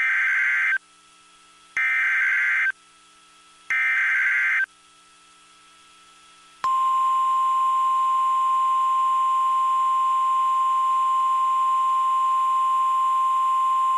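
Emergency Alert System SAME header data tones: three short buzzing bursts, each under a second long and about a second apart. After a pause of about two seconds, a steady single-pitch weather-radio alert tone starts about six and a half seconds in and holds to the end.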